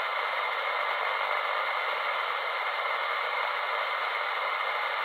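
Steady hiss of received band noise from a 10-metre radio's speaker, tuned to 27.555 MHz upper sideband, with no station talking.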